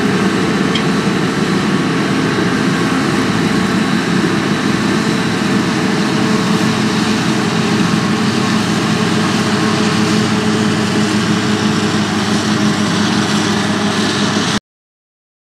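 Claas Jaguar 820 self-propelled forage harvester running under load while chopping maize: a steady, deep machine drone that cuts off suddenly near the end.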